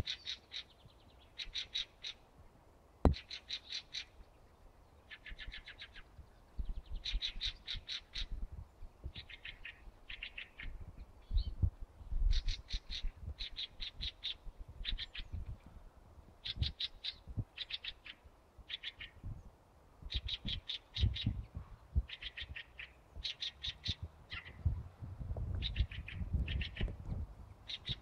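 Songbirds singing in a spring forest: short, rapid trilled phrases of high notes, each under a second, repeated over and over with short gaps. A low rumble rises near the end.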